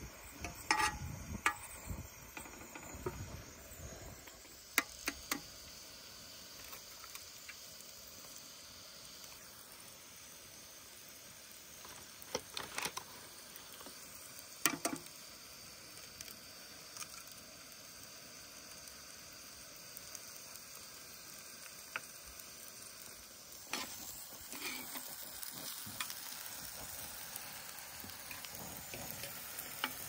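Diced red peppers sizzling in a divided frying pan, stirred with a metal fork that knocks against the pan now and then in sharp clicks. Partway through, eggs are cracked into the pan and fry alongside.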